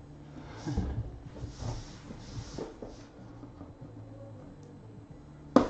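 Hands handling a hard black briefcase-style trading card box: soft rubbing and sliding on the case with a few light knocks, then one sharp, loud click near the end.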